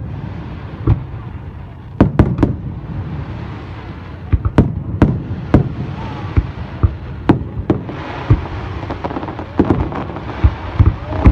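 Fireworks display: a series of sharp bangs at irregular spacing, some in quick twos and threes, over a continuous rumble and crackle of bursting shells.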